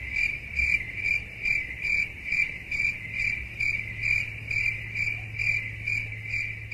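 Cricket chirping in an even, steady rhythm of about two to three chirps a second, over a faint low hum.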